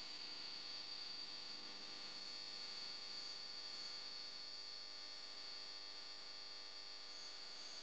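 Faint, steady outdoor ambience of rice fields: a constant high-pitched insect drone over a soft hiss.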